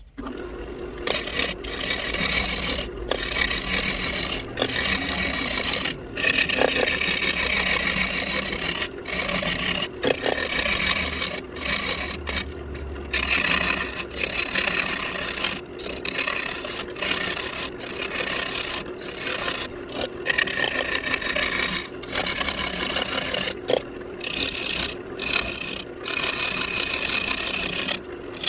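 Walnut spinning on a wood lathe with a tool or abrasive held against it: a continuous scraping, rasping sound that starts abruptly and breaks off for an instant every second or two.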